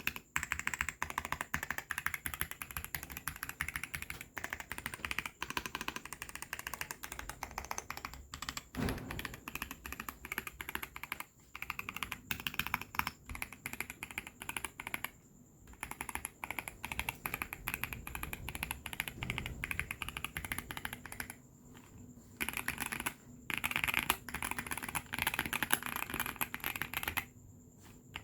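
Mechanical keyboard with Fantasy Virus tactile switches, built on a Xinmeng A66 kit with an aluminium plate, being typed on in fast, continuous keystrokes with a few brief pauses.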